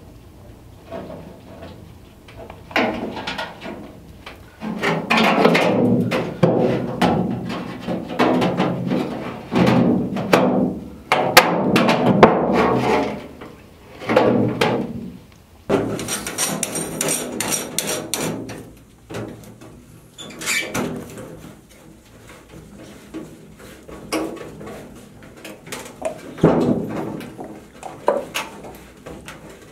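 Thin 20-ounce copper sheet being worked with hand tools: irregular knocks, clanks and rattles of the metal as it is hammered and bent into a sink, in loud clusters with quieter gaps between.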